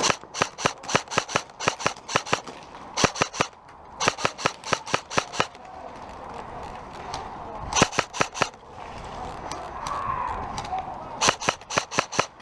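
Airsoft electric rifle, a CM16 Raider, firing in quick strings of sharp cracks, about six or seven shots a second. There are five strings with short pauses between them.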